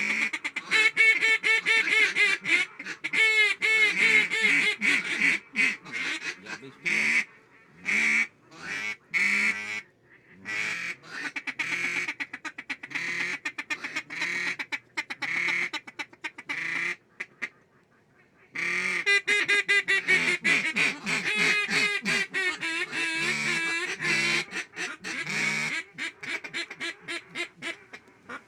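Duck quacking in rapid runs of short calls, with a brief pause about two-thirds of the way through.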